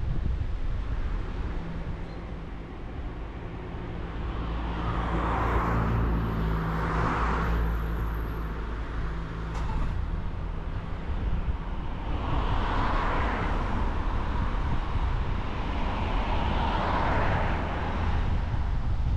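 Car driving on a road: a constant low rumble of road and engine noise, with a steady engine hum for a few seconds in the middle. Four swells of tyre and road hiss come and go.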